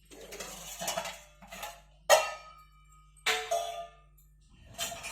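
Dishes and metal utensils clinking and clattering in about five separate knocks, some ringing briefly after the strike.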